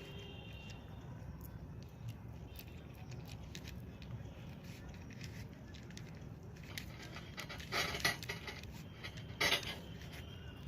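Small plastic 3×3 Rubik's cube being turned by hand, its pieces loose: faint scattered clicks, with two louder rattling bursts of turns near the end.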